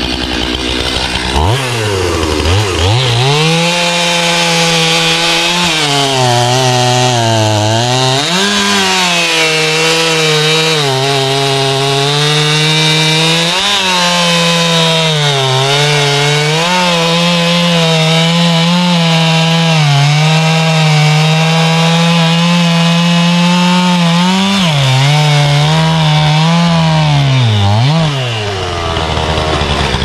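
Stihl chainsaw idling, then revving up sharply about a second and a half in and running at full throttle as it cuts into a large pine log, its pitch sagging and recovering as the chain bites. Near the end it drops back for a moment, then revs up again.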